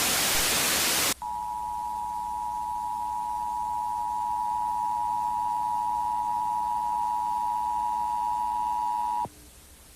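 A loud burst of static hiss lasting about a second, then the Emergency Broadcast System two-tone attention signal. Two steady tones just under 1 kHz sound together for about eight seconds and cut off sharply.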